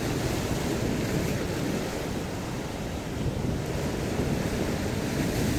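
Sea waves breaking and washing over a rocky shore, a steady surging rush, with wind buffeting the microphone.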